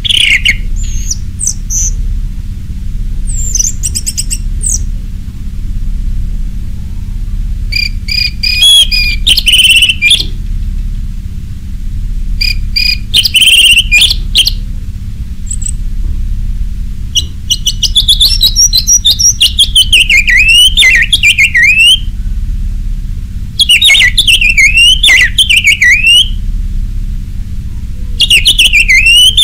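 Orange-headed thrush in full, open song: loud bursts of varied high whistles and chattering notes, separated by short pauses, with a longer run of quick rising and falling notes past the middle. A steady low hum runs underneath.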